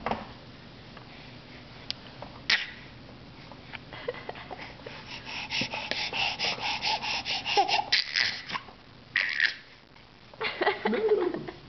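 A baby making odd breathy noises with a Dr. Brown's bottle vent insert in her mouth: a quick run of airy sputters at about four a second, then two short snorting bursts, the last with a small falling voice.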